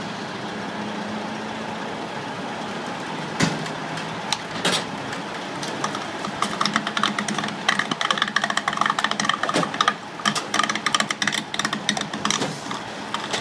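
Heavy truck diesel engine idling steadily. A sharp knock comes about three and a half seconds in, and from about halfway on a rapid, irregular clicking and clattering runs over the idle.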